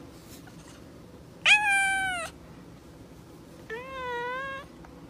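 Tabby cat meowing twice: a loud, high meow about a second and a half in, then a softer, lower, wavering meow near the end.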